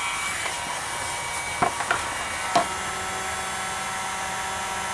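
Electric heat gun running steadily, a fan hiss with a thin whine, with three light clicks of handling around the middle.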